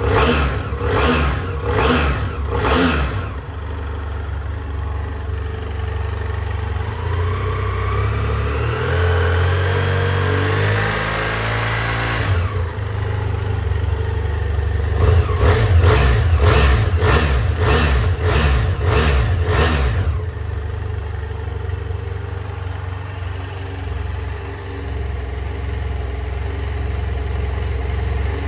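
BMW F800S parallel-twin engine idling in neutral. It is revved slowly up once, its pitch climbing for several seconds before it drops back suddenly to idle, with a regular pulsing about twice a second near the start and again in the middle.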